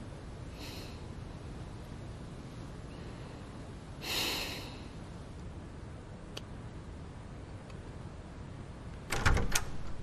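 A woman breathes out softly, with one stronger sigh-like exhale about four seconds in. Near the end a heavy door opens: a latch click and a few quick knocks.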